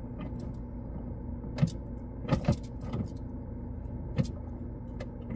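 Steady low hum inside a car that won't drive off, with a handful of short clicks and knocks: one about a second and a half in, a quick pair near two and a half seconds, one at three seconds and one about four seconds in.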